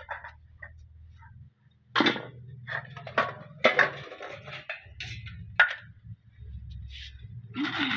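Steel plates, bowls and a spoon being handled, giving several sharp knocks and clinks over a low steady hum, with a short rustle near the end.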